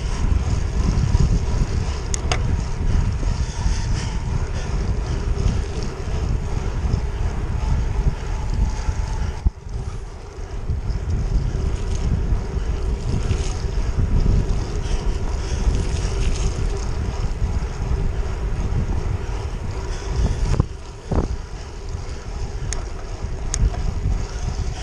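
Wind rushing and buffeting over the microphone of a handlebar-mounted action camera on a moving road bicycle, a steady rumbling noise. A few sharp clicks come through, about 2 and 4 seconds in and twice near the end.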